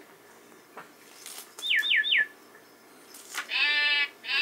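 Electronic sound effects from a baby play gym's sound unit, set off as the toy is knocked: three quick identical falling chirps, then two longer bleating tones near the end.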